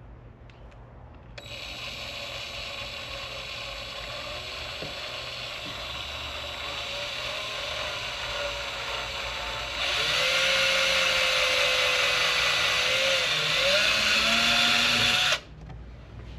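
Power drill running and boring a hole through the tour pack for the lock actuator. It starts about a second and a half in, gets louder about ten seconds in as the bit cuts, its pitch wavers under the load, and it stops abruptly near the end.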